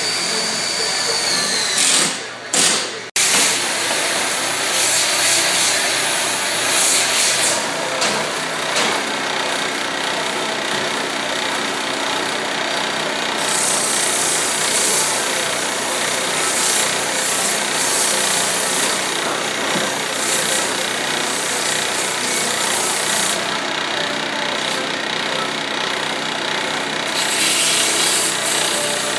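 Wood lathe running with sandpaper held against the spinning wooden baluster: a steady sanding hiss over the lathe's motor hum. The sound breaks off briefly about two to three seconds in, and the hiss grows brighter for several seconds in the middle and again near the end.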